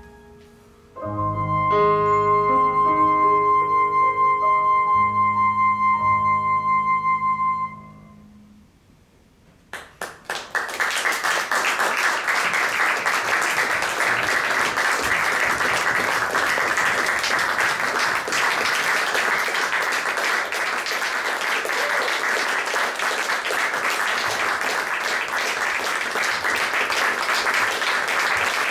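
The closing chord of a small band of piano, bass guitar and flute, held for several seconds and then dying away about eight seconds in. After a moment of quiet, a few claps start and full audience applause breaks out and carries on steadily.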